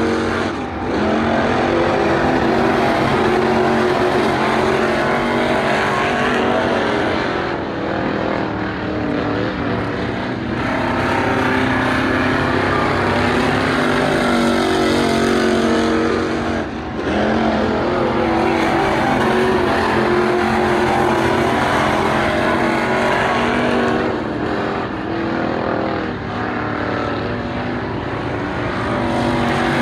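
WISSOTA Midwest Modified dirt-track race cars' V8 engines running hard at racing speed, the sound swelling and easing as cars go by, with a few brief dips in loudness.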